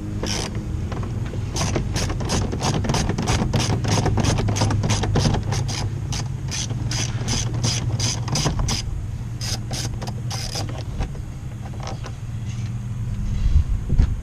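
Socket ratchet clicking as an 8 mm door-panel bolt is backed out: a long run of quick, even clicks, about three a second, with a brief pause partway, stopping about three-quarters of the way through. A steady low hum lies underneath.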